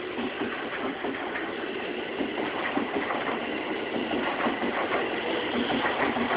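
E231 series 1000 electric multiple unit pulling out of a station and rolling past close by: wheels on the rails and traction motor noise, with scattered knocks, growing a little louder as it gathers speed.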